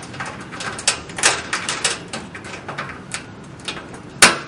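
Wires being worked out of the push-in terminal blocks on a fluorescent fitting's ballasts: a run of small clicks and scrapes of wire and plastic, with one sharp, louder click about four seconds in.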